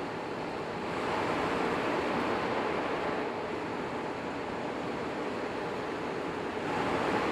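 E5 series Shinkansen running at speed, heard from on board: a steady rushing of wheel, rail and air noise. The noise swells louder about a second in and again near the end.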